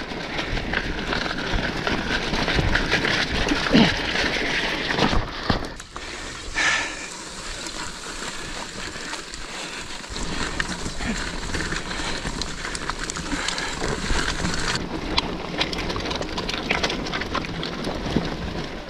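Mountain bike ridden along a wet dirt singletrack, heard from a camera on the rider: a steady rush of tyre and wind noise with frequent clicks and rattles from the bike. The low rumble eases about six seconds in.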